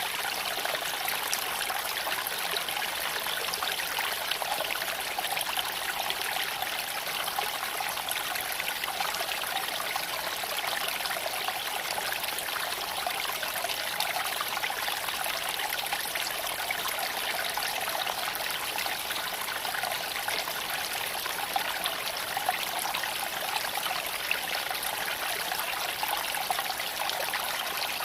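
A gentle creek flowing over smooth stones: a steady, even trickling rush of water that does not change.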